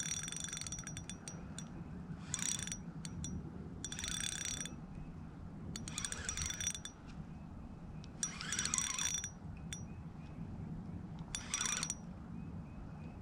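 Fishing reel clicking in short bursts, about six of them a couple of seconds apart, as a hooked carp is played in.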